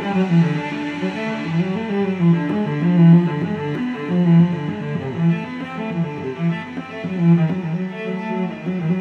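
Instrumental background music with a low, bowed-string melody.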